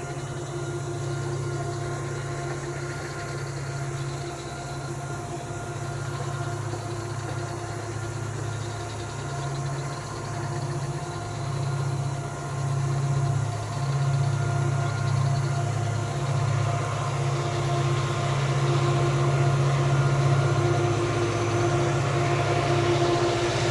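Two CC 205 diesel-electric locomotives in double traction hauling a long coal train, their engines droning steadily and growing louder as the train approaches.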